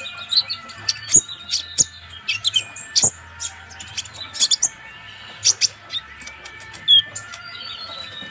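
Purple-throated sunbird (kolibri ninja) in full song: a fast, continuous string of sharp, high chips and short whistled notes.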